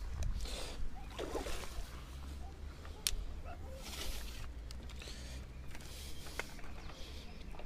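Fishing tackle being handled: scattered clicks and knocks from the rod, reel and landing net, the sharpest about three seconds in.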